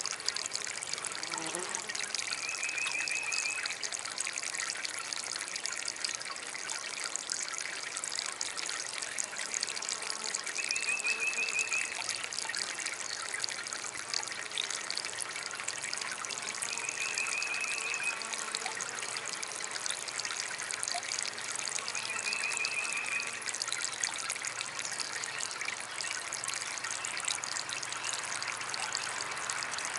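Water trickling steadily in a small DIY water fountain. A short, high-pitched pulsing trill comes four times, about every six seconds.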